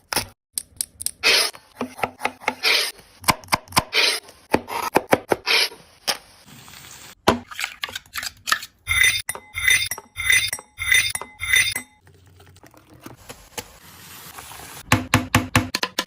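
Metal kitchen utensils clattering and clinking against pots and pans. About halfway through comes a run of about six ringing metallic clinks, two or so a second, and near the end a quick flurry of clicks.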